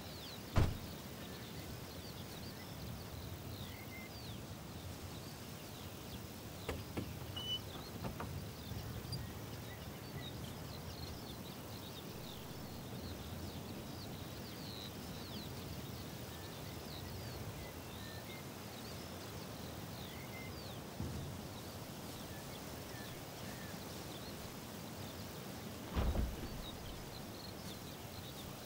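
Quiet open-field ambience: a low steady rumble of wind and distant noise with small scattered bird chirps. A few dull thumps break it, one about half a second in, a couple around seven to eight seconds, and one near the end.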